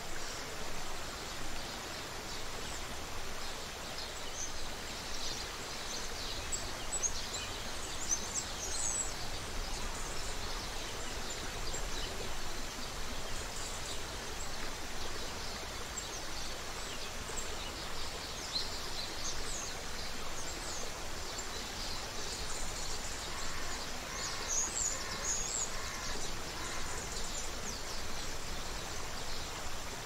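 Creek water running steadily, with small birds singing over it in several spells of high chirps, and a short run of evenly repeated lower notes near the end.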